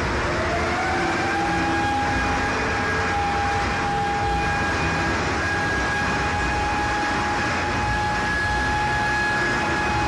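Loud, steady roar of an erupting steel furnace spewing molten metal. Over it runs a siren-like whine that rises in the first second and then holds one pitch.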